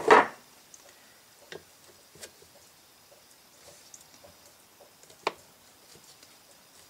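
A loud knock right at the start, then sparse faint metal clicks and taps as a steel punch is worked into a passage in an aluminium Autolite carburetor body, with one sharper click about five seconds in.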